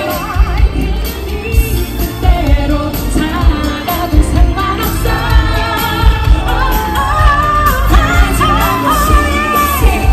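Live performance by a female vocal group singing a pop ballad over a full band with a drum beat, heard from the audience. Long held notes with vibrato in the second half.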